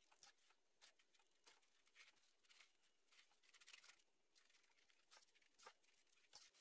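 Very faint crunching and scraping of gloved hands pressing and smoothing a wet sea-salt and egg-white paste over a whole chicken, in a string of short scrapes.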